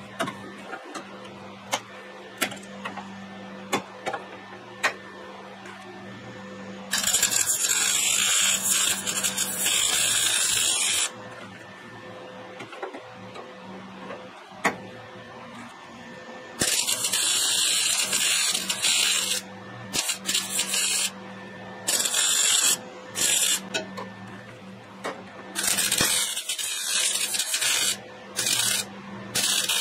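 MIG welder welding sheet steel, its arc crackling in bursts: a first weld of about four seconds starting about seven seconds in, another of about three seconds later, then a run of shorter welds and tacks in the second half. A steady low hum runs underneath, and a few light clicks come before the first weld.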